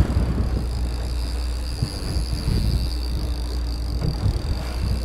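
Boat engine running steadily at trolling speed, with a thin steady high-pitched whine over it.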